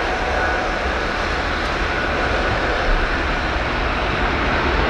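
Embraer 195-E2's geared turbofan engines running with a steady jet rush and a faint high tone, growing a little louder near the end.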